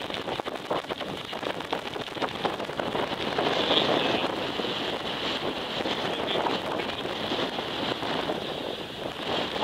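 Wind buffeting the microphone, over the faint running of a Ford Bronco's engine as the truck drives off across loose sand; a little louder from about three and a half seconds in.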